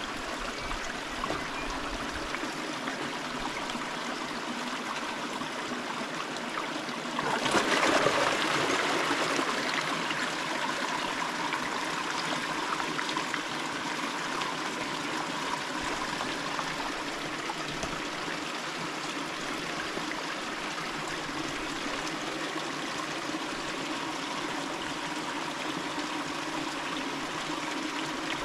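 River water running steadily, with a sudden louder burst of noise about a quarter of the way in that fades away over a couple of seconds.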